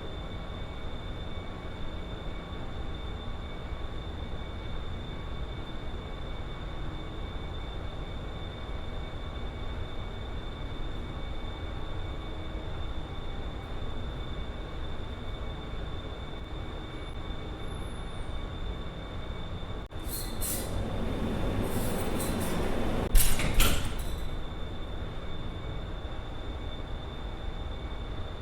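Ship interior ambience: a steady low machinery rumble with a thin, steady high whine above it. About two-thirds of the way through, a few knocks and a louder rush of noise last for about four seconds, with the loudest bang near their end.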